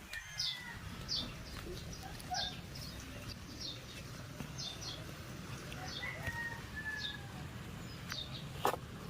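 Small birds chirping: short high chirps repeating about once or twice a second, with a couple of longer whistled notes, over a steady low rumble.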